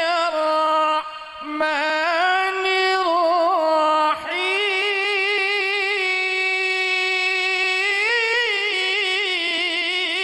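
A man chanting Qur'an recitation in the melodic tilawah style: long held notes with wavering, trilled ornaments, broken by short breaths about a second in and again around four seconds.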